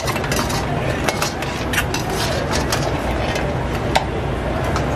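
Kitchen background: scattered clinks and clicks of dishes and utensils over a steady low rumble, with one sharper click about four seconds in.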